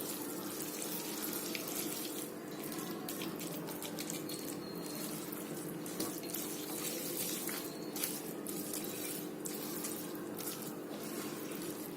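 Steady rushing hiss with a low even hum underneath and a few faint light taps, as Maggi noodles are stirred in a pan on the stove.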